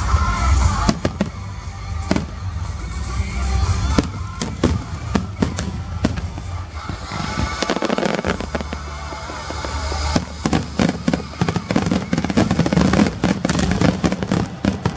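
Fireworks bursting, one sharp bang after another, with a dense run of crackling reports in the second half, over music playing in the background.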